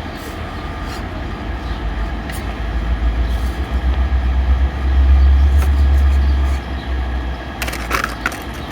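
A 1/24-scale RC rock crawler's tiny electric motor and gears whine faintly as it scrabbles to climb, its tyres and chassis ticking and crackling against wood and rock, with a cluster of sharp crackles near the end. A loud low rumble swells under it through the middle.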